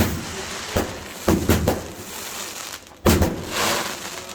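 Fireworks going off: a string of sharp bangs, three in quick succession about a second in and another loud one about three seconds in, each trailing off, over a steady hiss.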